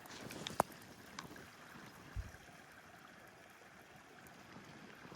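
Small mountain creek flowing, a faint steady rush of water, with a sharp click about half a second in and a short low bump about two seconds in.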